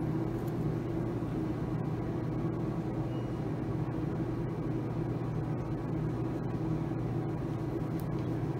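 Steady low mechanical hum of the room, with nothing else standing out.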